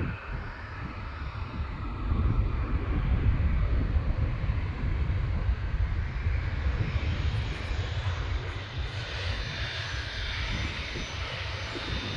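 Jet engines of a Boeing 737 airliner on its landing pass, a heavy low rumble with rushing noise that is loudest a few seconds in and then slowly eases off, with a faint high engine whine showing near the end.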